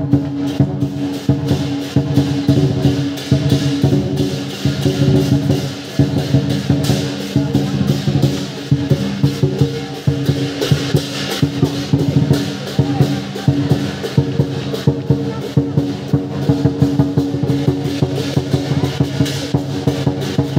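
Lion dance percussion: a Chinese lion dance drum beaten in a rapid, steady stream of strikes, with cymbals and gong ringing beneath it.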